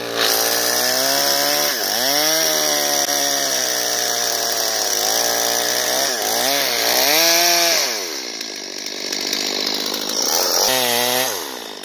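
Two-stroke chainsaw cutting into a standing birch trunk for a felling cut, at full throttle with its pitch dipping as the chain loads up in the wood. It eases off about eight seconds in, revs up again briefly near the end, then drops away.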